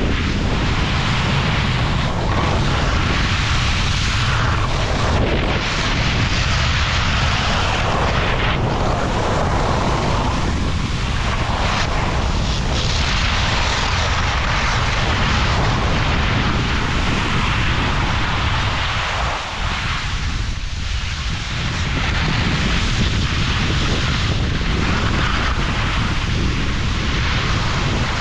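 Wind rushing and buffeting over the microphone on a fast downhill ski run, with the hiss of skis sliding over snow rising and falling through the turns.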